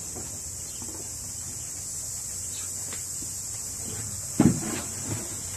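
A short knock with a brief rustle about four seconds in, from the woven bamboo basket being handled against the wooden rails, over a steady high hiss.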